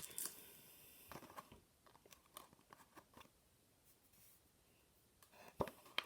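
Faint, scattered rustles and clicks of a cardboard box and packing tape being worked at by hand, quiet for a second or two in the middle, with a couple of sharper clicks near the end.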